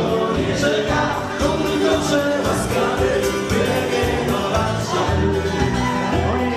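Live band playing upbeat dance music with a singer over a steady beat of about two beats a second.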